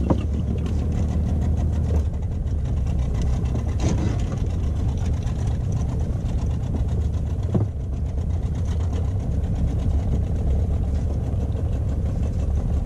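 Small boat's engine running steadily in reverse gear, backing the boat on its anchor, with a couple of faint knocks.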